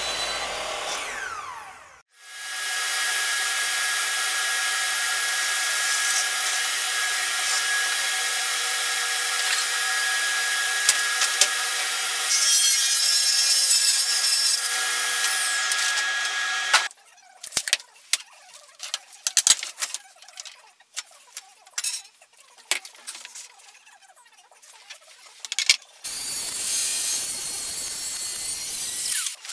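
A brief logo sound with a falling whine. Then a plunge track saw with dust extraction runs steadily through a long cut in a wooden sheet for about fifteen seconds, followed by scattered knocks and clatter as the rail and panel are handled, and the saw running again near the end.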